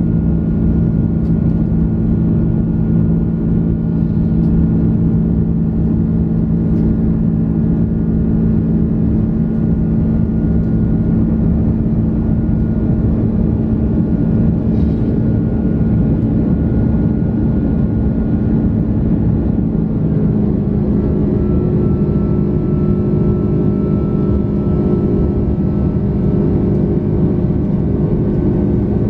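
Airbus A330-300 jet engines running with a steady, loud drone and several steady hums, which shift slightly in pitch about two-thirds of the way through.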